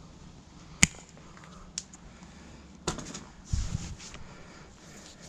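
Sharp clicks of hand cutters snipping through a fan's power cable: two loud snaps about two seconds apart and a smaller click between them, then a low rustling thump.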